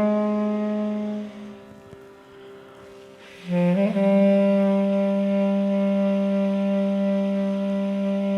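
A long, steady held note with rich overtones fades out about a second in; after a short lull a new note enters with a brief upward slide and is held steadily.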